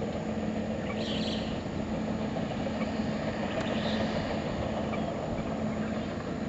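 New Holland TC54 combine harvester and a tractor running together, a steady engine drone with a constant hum.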